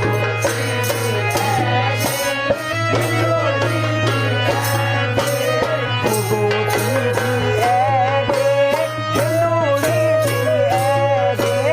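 Uttarakhandi Holi folk music: a wavering melody line over a steady, regular drum beat and a low held drone.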